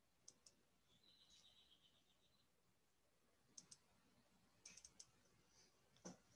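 Faint computer mouse clicks in a near-silent room: single and double clicks scattered through, with a quick cluster just under five seconds in and the loudest click near the end. A faint rapid ticking runs for about a second and a half near the start.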